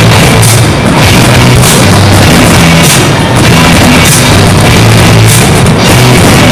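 Loud rock music with pounding drums and a sustained bass line, played over a sound system. It is distorted by an overloaded phone microphone.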